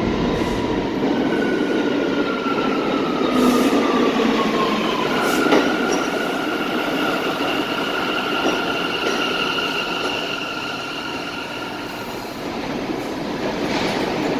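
An R179 subway train pulling into the station and slowing to a stop, with the steady rumble of its cars passing. A high whine falls in pitch over the first few seconds, then holds at a steady high pitch until the train stops about twelve seconds in.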